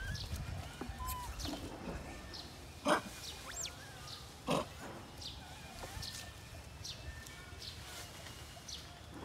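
Long-tailed macaques calling: scattered short, high squeaks and chirps, with two brief louder calls about three seconds and four and a half seconds in.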